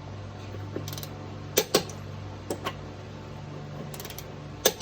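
Click-type torque wrench on a Jeep Wrangler's lug nuts, giving three sharp double clicks a second or two apart. On this confirmation pass each click shows the nut is already at the set torque.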